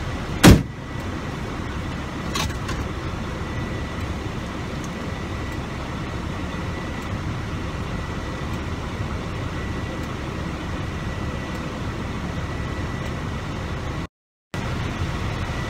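Semi truck's diesel engine idling steadily, heard inside the cab, with a faint steady high whine over the rumble. A sharp thump about half a second in is the loudest sound, and a lighter knock follows about two seconds in. The sound cuts out briefly near the end.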